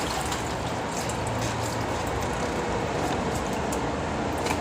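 Tap water running steadily into a sink while pig offal is washed under it, with a few faint wet clicks.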